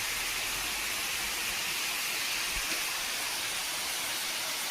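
Waterfall: the steady rush of falling water, an even noise weighted toward the high end that holds constant throughout.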